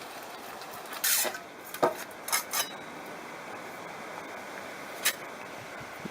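A handful of short, sharp knocks and scrapes over a steady hiss: the loudest and longest comes about a second in, then two quick ones near two and a half seconds, and a last one near five seconds.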